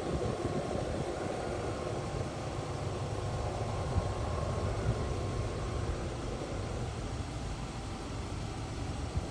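Two CSX diesel locomotives approaching, their engines making a steady low rumble.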